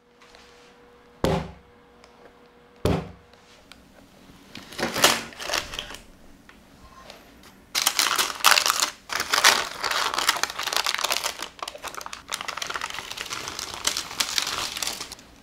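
Parchment baking paper crinkling and rustling as it is peeled off a baked cake, in long crackly stretches. Two sharp knocks come shortly before.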